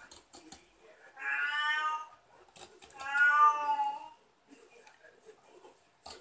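A cat meowing twice, each call drawn out for about a second, with a few faint clicks between the calls.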